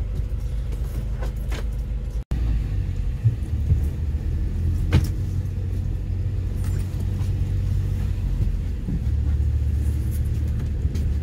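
Steady low rumble of a motor vehicle running, with a few short clicks and knocks. The sound cuts out for an instant about two seconds in, then carries on.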